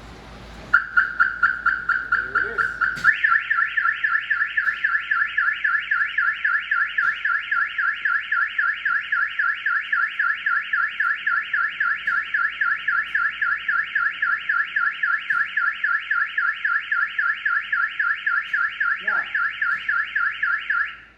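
Harley-Davidson's aftermarket alarm siren going off, set off by its tilt sensor as the bike is lifted. It sounds as a rapid warbling tone of about four pulses a second that starts just under a second in. About three seconds in it switches to a fuller tone, and it cuts off suddenly near the end.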